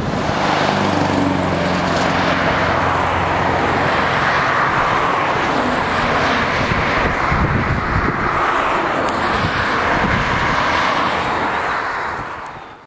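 Scania R580's 16-litre V8 diesel truck pulling a trailer past: a deep engine tone with a rumble for the first few seconds, then tyre and road noise as it passes and draws away, fading out near the end.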